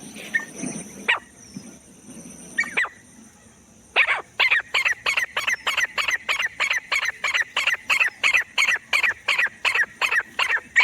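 Francolin (teetar) calling: a couple of single sharp notes, then from about four seconds in a fast, even run of short, sharp notes at about four a second.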